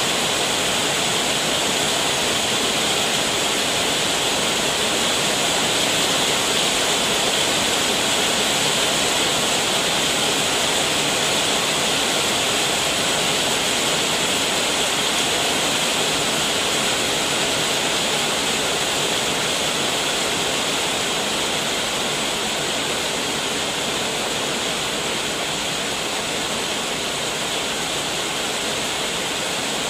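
Heavy rain pouring down in a dense, steady hiss, drumming on the roof and spattering on the garden and road, easing slightly toward the end.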